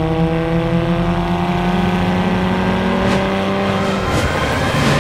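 BMW M4 G82's twin-turbo straight-six under hard acceleration, its note climbing steadily for about four seconds. About four seconds in the steady note breaks up and a higher, rising tone takes over.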